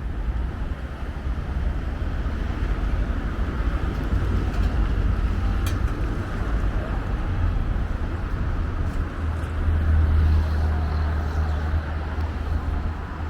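Steady road traffic on a busy city street: a continuous low rumble of passing vehicles, swelling a little about ten seconds in.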